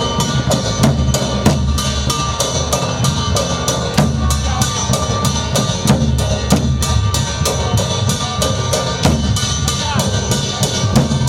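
Drum-led percussion music with a fast, even beat of about four sharp strikes a second, steady held tones running above it.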